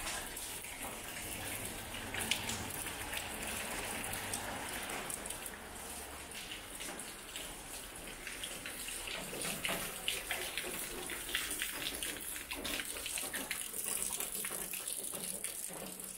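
Rain dripping and water trickling onto wet concrete and surfaces: a steady hiss dotted with many small drip ticks.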